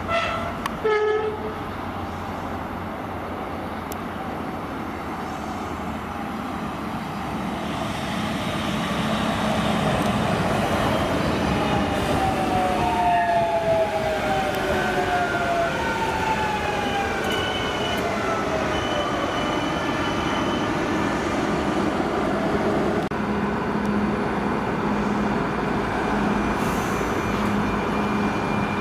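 CP Regional series 2240 electric multiple unit sounds a short horn blast, then runs into the halt with a building rumble of wheels on rail. Falling whines come as it slows to a stop, and once it is standing a steady pulsing hum comes from its on-board equipment.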